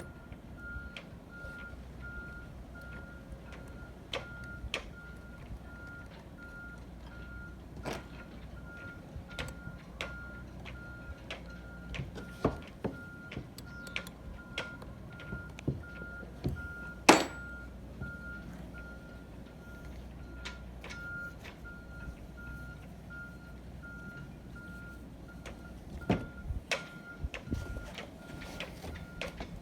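A vehicle's reversing alarm beeping at an even pace, stopping a few seconds before the end. Scattered knocks and taps of hand work sound over it, one louder knock about halfway through.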